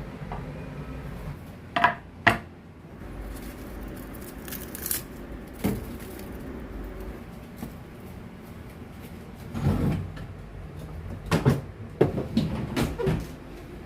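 Kitchen handling sounds: scattered knocks and clatters of utensils, dishware or cupboard doors, with a busier run of clattering in the last few seconds.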